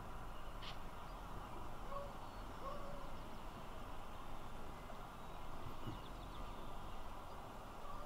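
Steady low background noise of open country, with a few faint short bird calls about two to three seconds in.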